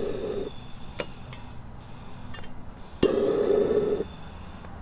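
Butane torch burning steadily, then going out about half a second in. Its igniter clicks a couple of times, and about three seconds in it catches with a click, burns for about a second and cuts out again, failing to stay lit.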